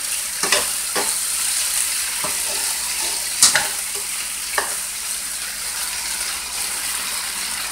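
Beef short ribs, onions and green pepper sizzling in a frying pan with a steady hiss, with a few sharp clicks and scrapes as they are stirred.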